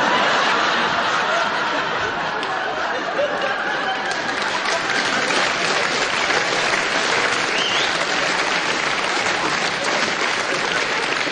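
Audience applauding and laughing in reaction to a joke, a long steady burst of clapping that starts abruptly.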